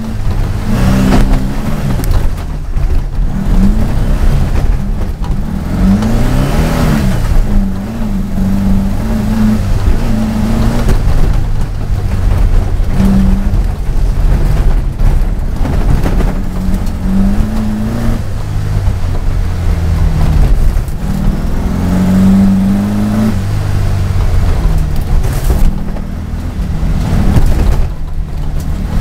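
Turbocharged VW Baja Beetle engine, heard loud from inside the cabin, revving up and down over and over as the car is driven hard over rough offroad ground.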